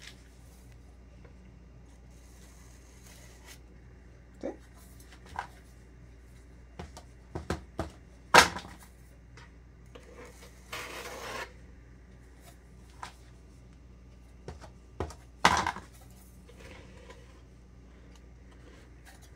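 Scattered knocks and clicks of a metal offset spatula and a plastic cake stencil being handled on a cake turntable, with a short scrape a little past halfway; the two loudest knocks come about eight and fifteen seconds in.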